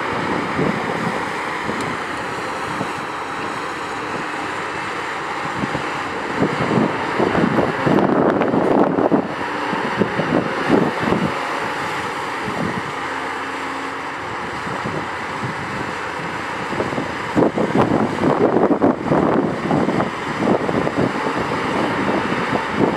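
Doosan DX235LC-5 tracked excavator's diesel engine running steadily under work, with a steady whine. Bursts of wind noise on the microphone come about a third of the way in and again near the end.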